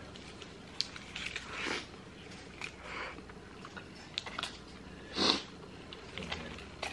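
Close-up eating sounds of a burrito being chewed: soft scattered mouth clicks and smacks, with light crinkles from the aluminium foil wrapper as it is handled, and one louder short burst about five seconds in.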